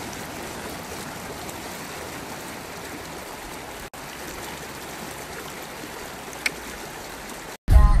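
Muddy flash-flood water rushing past, a steady even rush that breaks off briefly about four seconds in.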